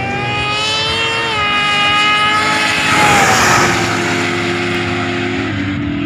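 Race car engine at full throttle on a racing track, its pitch climbing and then dropping at a gear change about a second in. The car passes close about three seconds in, loudest there, with the engine note falling as it goes by, then carries on lower and steadier as it runs away down the track.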